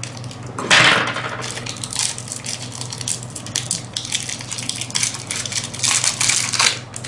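Crinkling and crackling of the sealed plastic packaging around a vape tank as it is worked open by hand: a dense run of crackles and rustles, loudest about a second in and again near the end.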